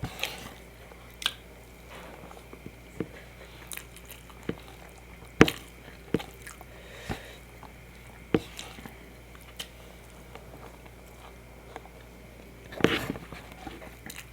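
Close-miked chewing and biting: irregular wet mouth clicks and snaps, with a denser bout of chewing near the end.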